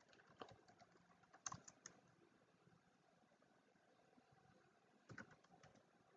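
Faint computer keyboard keystrokes in near silence: a few scattered taps, with a small cluster about a second and a half in and a pair near the end.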